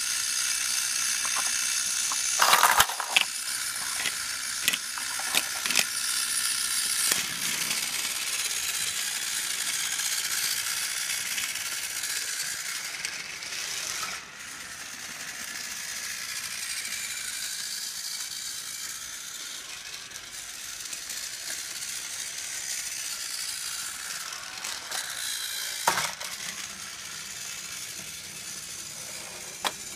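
Battery-powered Thomas TrackMaster toy engine running on plastic track, its small motor and gears whirring with a rattling, ratchet-like chatter. A few sharp clicks come about three seconds in and again near the end, and the running sound turns fainter about halfway through.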